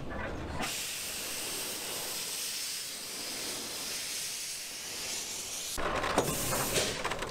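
Narrow-gauge steam locomotive giving off a steady hiss of steam. About six seconds in, the hiss gives way to irregular metallic clanks and knocks.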